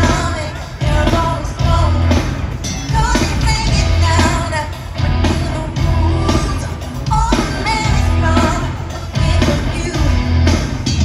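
Live rock song with a woman singing over a band with heavy, steady bass, played loud through a stadium PA and heard from the stands.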